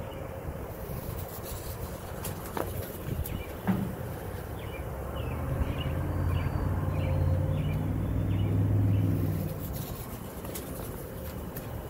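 A low motor hum swells from about five seconds in, peaks and fades away near the end, over a steady outdoor rumble, with small birds chirping.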